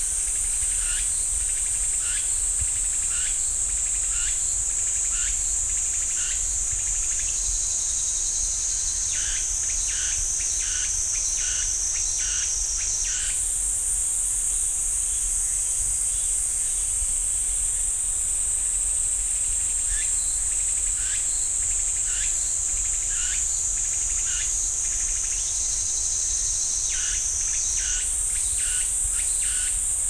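Cicadas singing: a steady high-pitched buzz that steps up in pitch twice, with short chirps repeating under it about every half second.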